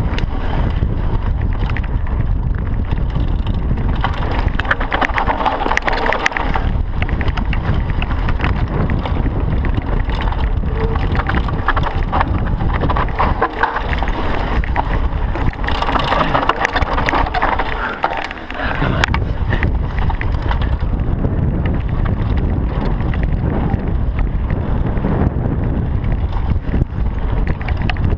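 Mountain bike descending a rocky dirt trail at speed: wind rushing over the chest-mounted camera's microphone, with a continuous clatter of tyres on stones and the bike rattling over the bumps.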